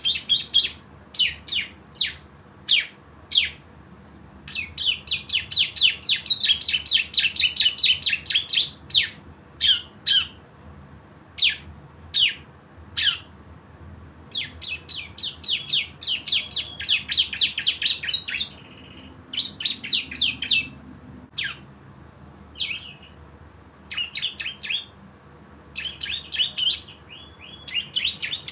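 A ciblek (prinia) singing. Sharp, down-slurred single chips come about one or two a second, and several times they break into fast machine-gun-like rattling trills of about ten notes a second (the 'bren' song), the longest about four seconds.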